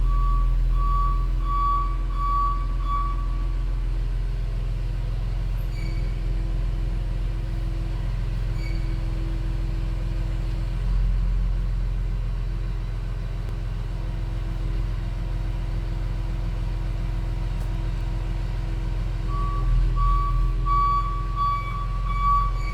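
Hercules Trackmobile railcar mover's diesel engine running steadily as the machine moves forward on the rail. A warning beeper sounds repeated beeps for about the first three seconds, and again near the end.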